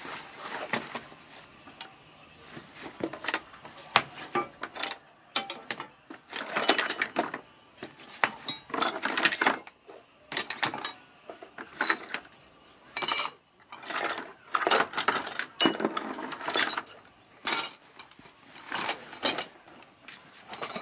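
Metal hand tools (wrenches, sockets, screwdrivers) clinking and clattering as they are pulled from a cloth tool bag and dropped into a bucket of other tools, in irregular bursts of clinks.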